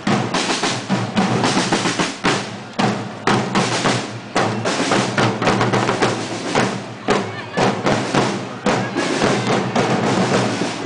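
Marching corps of parade drums beaten with sticks, many drums striking together in a steady, driving marching rhythm.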